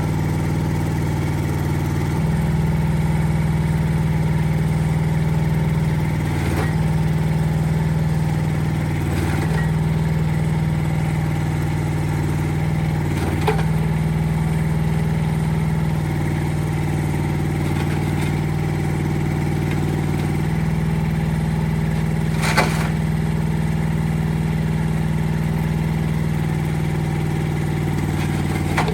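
Small engine of a Rippa R10 mini excavator running steadily. Its pitch steps up a couple of seconds in and sags briefly a few times, with several sharp metallic knocks, one much louder near the end.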